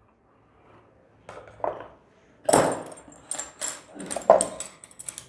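Small hard plastic kit parts being handled and set down on a tabletop: a few soft knocks, then a run of sharp clicks and clatter over the last two or three seconds.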